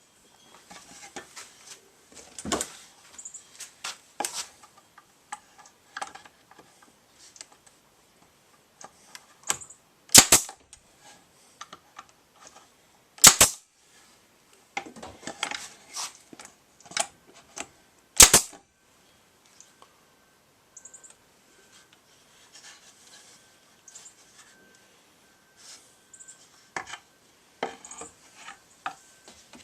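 Wooden workpieces and tools being handled at a workbench: scattered clicks and knocks, with three sharp, loud clacks of wood striking wood or metal a few seconds apart.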